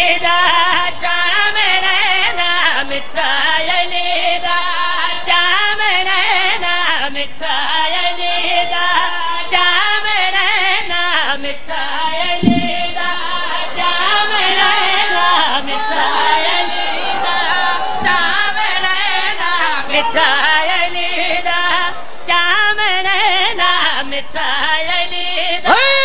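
A man's voice singing a Punjabi devotional qasida in praise of Ali, with a melodic, ornamented line that runs on without a break through a microphone and loudspeakers.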